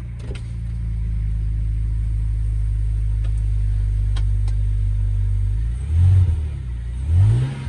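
A BMW 328i's 2.8-litre straight-six engine idles steadily, then revs rise twice near the end as the car pulls away.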